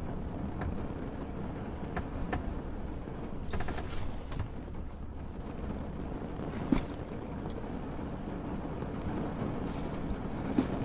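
Steady low rumble of a boat's engine, with scattered light clicks and knocks and one louder knock about seven seconds in.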